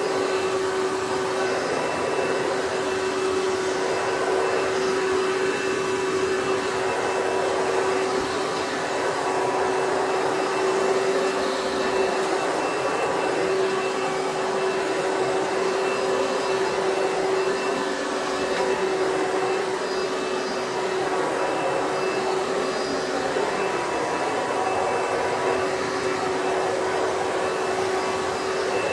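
Bagless vacuum cleaner running steadily while picking up a mess, its motor giving a constant whine over the rush of air.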